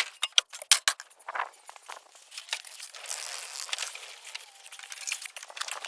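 Quick clicks and clinks from objects being handled, followed by a rustling noise.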